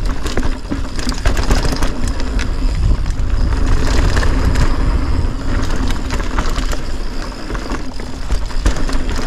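Polygon Siskiu mountain bike descending a rocky dirt trail, its tyres crunching over rock and loose dirt and its parts clattering, with wind buffeting the microphone.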